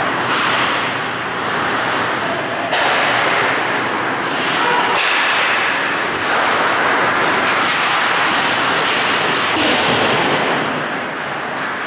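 Ice hockey play in an echoing indoor rink: skate blades scraping and carving the ice, with a few sharp knocks from sticks or the puck.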